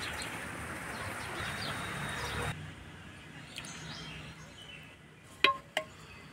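A steady rushing noise that cuts off suddenly about two and a half seconds in, then a metal ladle clinking twice against a ceramic serving bowl near the end, each clink ringing briefly.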